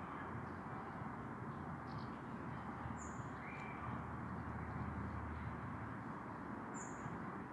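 Outdoor ambience: a steady low background rush with a few short, high bird chirps, one about three seconds in and another near the end.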